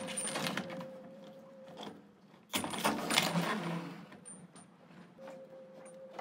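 Metal clinking and rattling as a new mixer tap's braided flexible hoses and fittings are handled and fed down through a hole in a sink counter, louder and busier from a few seconds in. A faint steady hum runs underneath, stopping for a few seconds in the middle.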